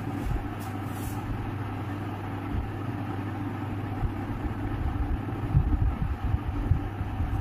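A steady low mechanical hum of background noise, with a few soft low knocks about five and a half to seven seconds in.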